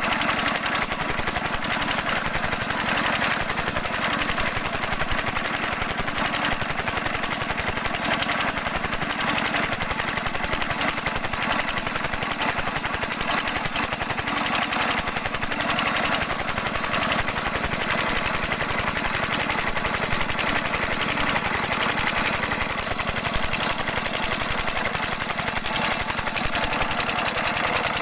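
Small 5 hp single-cylinder stationary diesel engine running steadily, with a rapid, even knocking beat of firing strokes.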